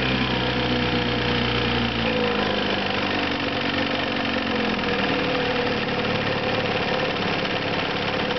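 1955 Johnson CD-12 5.5 hp two-cylinder two-stroke outboard motor running under way. It is throttled back about two seconds in, and its note drops and eases as the boat slows.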